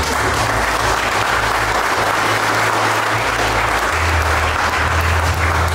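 Congregation applauding: many hands clapping in a dense, even patter, with the low bass of background music underneath.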